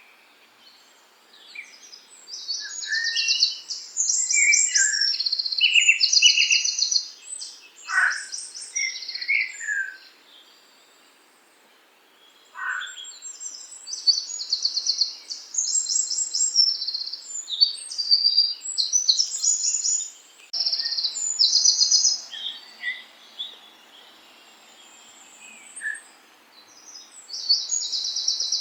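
Songbirds singing in the countryside: repeated phrases of rapid, high trilled notes with a few lower whistles and quick down-slurred calls. The singing pauses twice for a couple of seconds.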